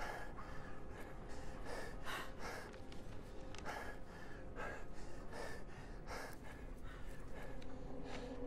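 A person breathing hard in quick, shaky gasps, about two breaths a second, over a faint steady hum.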